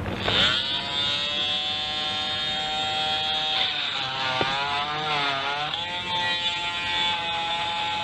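Electric power tool motor running under load, its pitch dipping as it bites and wavering up and down in the second half, as it cuts away defective sheet waterproofing membrane.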